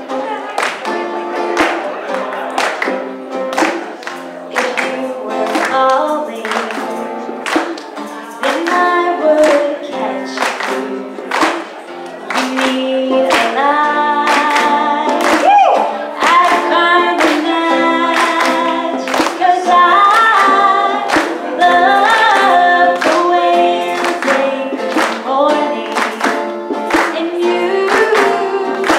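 A woman singing into a handheld microphone over musical accompaniment with a steady beat. The accompaniment plays alone at first, and her voice comes in about halfway through.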